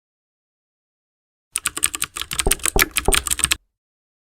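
A rapid flurry of sharp, bright taps, about ten a second for roughly two seconds, starting about a second and a half in and stopping abruptly.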